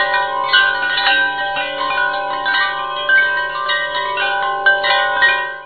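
Chime-like background music: struck bell tones ringing on and overlapping, with new notes coming in throughout, cutting off abruptly at the end.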